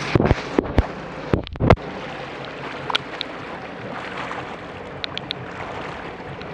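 A handheld camera is knocked and rubbed several times in the first two seconds. After that comes the steady, even noise of a personal watercraft sitting on the water, its engine idling under a wash of water and wind, with a few small clicks.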